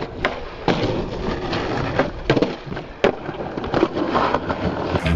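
Skateboard rolling on concrete, its wheels running with several sharp clacks of the board popping and landing.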